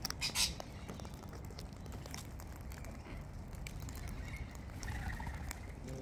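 Small clicks and scratches of cockatoos pecking at and cracking seed close to the microphone, over a steady low rumble, with a short rasping noise just after the start.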